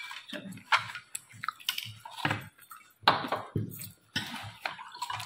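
Glasses, plates and spoons clinking and knocking in a string of short irregular clicks, with a spoon scraping through food in a plastic bowl. Near the end a drink begins pouring from a plastic jug into a glass.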